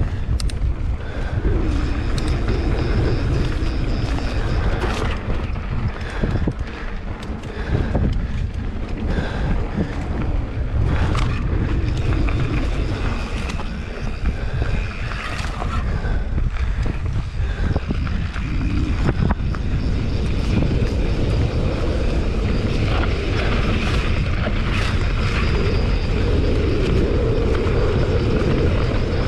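Heavy wind buffeting on the microphone with a constant low rumble and many short clattering knocks throughout.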